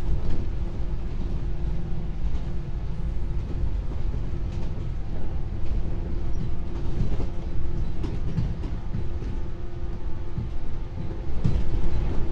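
Running noise inside the motor car of a JR 113 series electric multiple unit: the wheels on the rails give a steady low rumble, with a constant hum above it and a few short knocks partway through and near the end.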